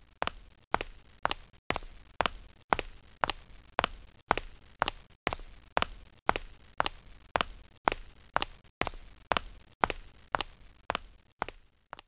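Steady footsteps, about two steps a second, each a sharp hard-soled step with a short echoing tail: an animated character walking on stone paving.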